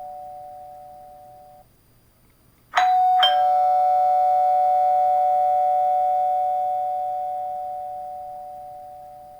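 Doorbell chime sounding a two-note ding-dong, a higher note then a lower one a fraction of a second apart, both ringing on and fading slowly. Before it, the fading tail of the previous chime dies away.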